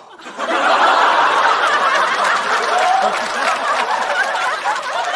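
Studio audience laughing, swelling up about half a second in and carrying on steadily.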